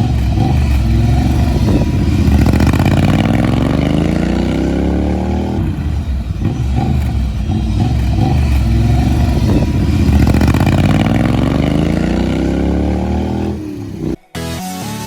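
Motorcycle engine with an aftermarket turnout performance exhaust, accelerating hard twice with its pitch rising through the revs each time and dropping between pulls. The engine is a 2020 Triumph Bobber's 1200 cc parallel-twin fitted with British Customs turnout exhaust tips. It cuts off suddenly near the end.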